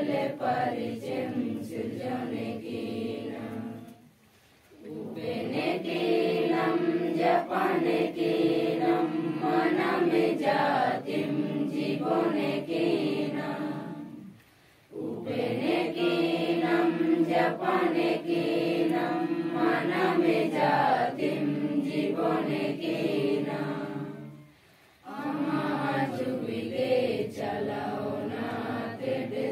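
A group of women and men singing a devotional prayer song together in unison, in long phrases broken by three brief pauses about ten seconds apart.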